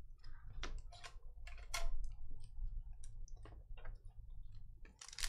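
Scattered light clicks and taps of trading cards and foil packs being handled and set down, over a faint steady low hum.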